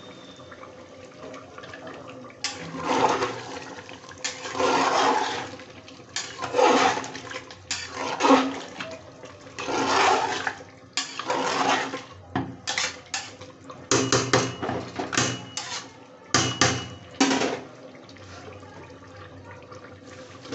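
Metal ladle stirring mutton pieces in broth in an aluminium pressure cooker: the liquid sloshes in a series of irregular strokes. Near the end come quicker, sharper strokes with faint clinks of the ladle against the pot.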